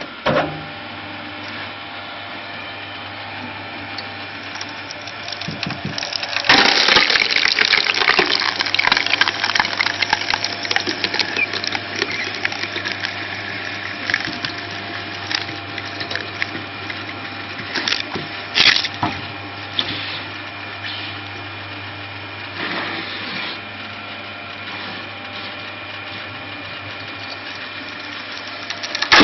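Screw (cone) log splitter, its threaded cone belt-driven by a 4 kW motor at 1400 rpm, running with a steady hum while boring into an oak round. From about six seconds in the oak crackles and splinters loudly as it splits, followed by single sharp cracks as the pieces break away.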